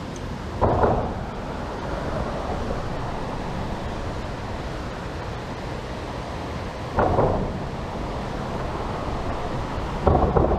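Steady rush of flowing creek water with wind on the microphone. Three short, louder sounds break in about a second in, about seven seconds in, and near the end.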